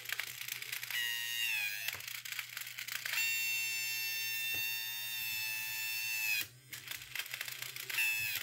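Small electric motor of an Elenco Mech 5 mechanical coding robot whining while its plastic gears jam and click after shifting into reverse. The whine runs in three spells, the longest about three seconds, dropping in pitch as it stalls each time. Rapid clicking of the gear teeth runs under it.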